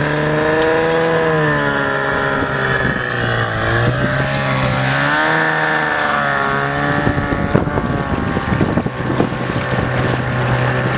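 Small boat's outboard motor running, its pitch dipping and rising several times as the throttle changes, with wind buffeting the microphone in the second half.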